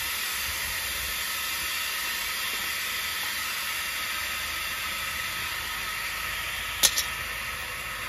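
Air hissing steadily out of a car tire through the valve stem with its valve core pulled, the tire deflating; the hiss weakens slightly toward the end. A single sharp click about seven seconds in.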